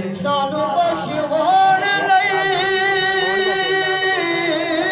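A man's solo voice sings a Punjabi naat into a handheld microphone. The line is ornamented and then settles into one long held note for about two seconds, which breaks off a little after four seconds.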